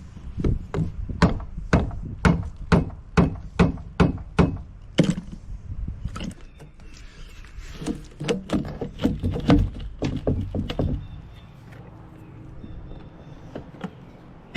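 Repeated hammer blows on a wooden boat's hardware while chainplates are being removed. A run of about a dozen strikes, roughly two to three a second, comes first; after a pause of a couple of seconds a second, quicker run follows, and then the blows stop.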